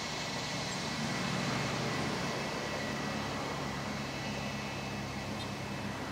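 Bombardier Challenger 350 business jet's twin turbofan engines running as the jet taxis slowly on the runway: a steady low hum with a thin, steady high whine.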